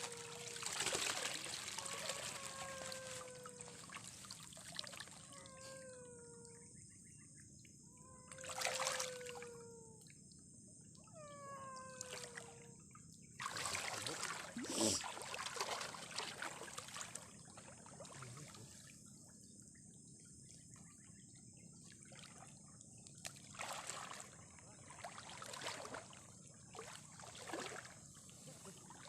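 Water splashing and trickling in shallow floodwater, loudest in a few short rushes. Through the first twelve seconds an animal gives a series of short, falling whines, one every second or two.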